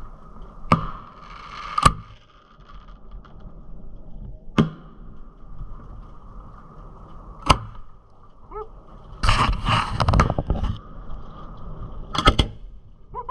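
Aerial fireworks: four separate sharp bangs a few seconds apart, then two runs of many rapid crackling pops in the second half.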